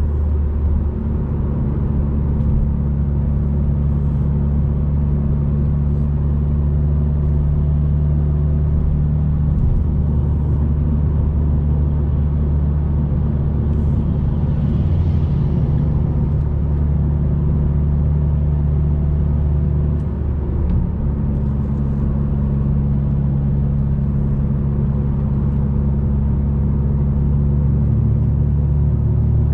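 Audi A3 8P 2.0 TFSI turbocharged four-cylinder with a 2.5-inch downpipe and cat-back exhaust, heard from inside the cabin, cruising at a steady low drone. The engine note shifts briefly about a second in and again around twenty seconds in.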